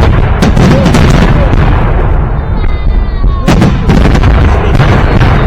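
Victory Day fireworks salute: loud booms of salute volleys and bursting shells, a close pair about half a second in, another at about three and a half seconds and one near the end, over a continuous low rumble.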